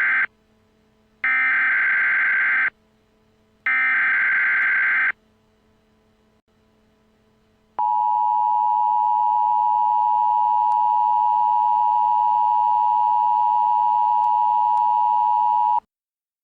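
Emergency Alert System tones: the end of the first and then two more of three electronic SAME header data bursts, followed about eight seconds in by the steady two-tone EAS attention signal, held for about eight seconds before it cuts off abruptly. These mark the start of a new emergency alert.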